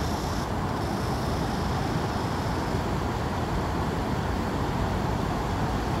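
Steady low rumble of road traffic, even and unbroken.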